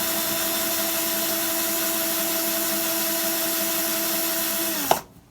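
Electric drill driving a Hornady cam lock case trimmer, spinning a cutter to trim brass rifle cases, running at a steady speed. About five seconds in it winds down and stops with a click.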